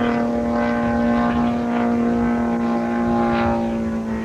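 Super Tiger ST 6000 twin-cylinder glow engine of a quarter-scale RC Hawker Hurricane running at high power in flight: a steady buzzing drone with its pitch dipping slightly near the end.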